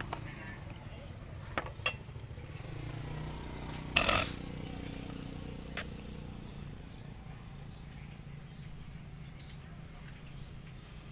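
Metal clicks and clinks from a brass Zippo lighter being handled: a few sharp clicks, then a short scraping burst about four seconds in, over a low steady background.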